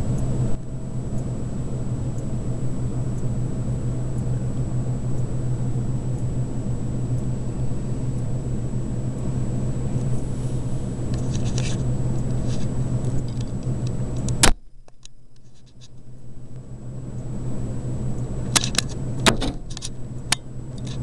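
A vehicle engine running steadily. About two-thirds of the way through, a sharp click and the engine sound cuts out abruptly, then builds back up over the next few seconds, with a few sharp clicks near the end.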